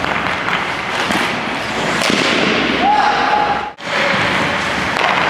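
Ice hockey practice on a rink: skate blades scraping the ice, with sharp cracks of sticks hitting pucks echoing in the arena. The sound cuts out briefly about three and a half seconds in.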